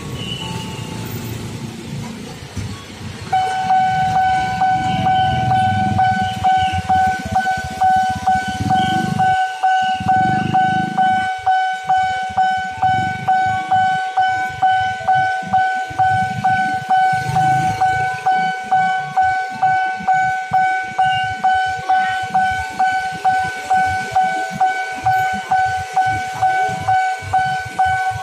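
Railway level-crossing warning bell, starting about three seconds in and ringing in an even repeating electronic chime, roughly one and a half strokes a second: the crossing is closing for an approaching train. Motorbike engines run underneath it in the first half.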